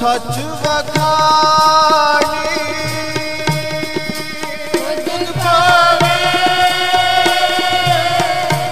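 Sikh kirtan music: long held melody notes over a steady tabla rhythm.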